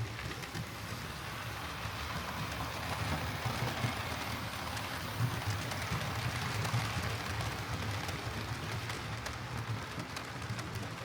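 Hornby OO gauge Battle of Britain Class model steam locomotive running on track: a steady motor hum and rumble of wheels on rails, with a few small ticks.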